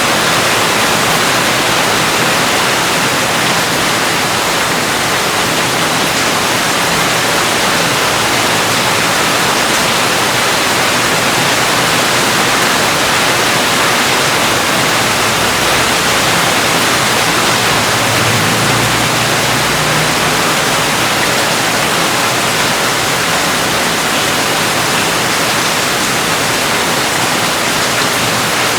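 Steady heavy rain: a constant, even hiss of noise with no changes.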